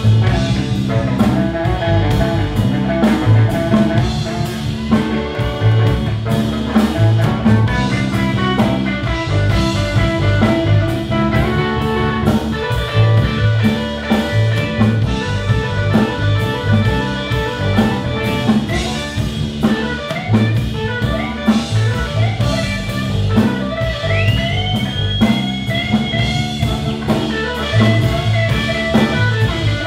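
Live blues band playing an instrumental passage of a slow blues ballad: electric guitar and harmonica lines over bass and drums, with no singing. A few notes near the end are bent upward.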